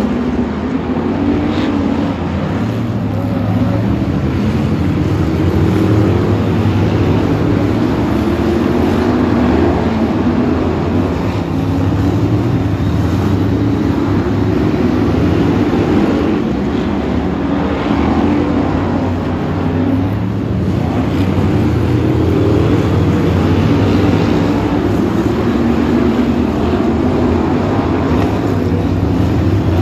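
A pack of BriSCA F1 stock cars racing, their V8 engines running loud and continuous, the note slowly swelling and fading as the cars pass round the oval.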